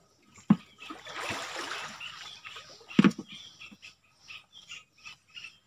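A person wading through swamp water, the water swishing and splashing around the legs, with two sharp knocks, one shortly after the start and a louder one about three seconds in.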